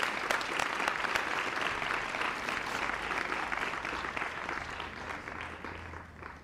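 Large audience applauding, a dense patter of many hands clapping that thins and fades out near the end.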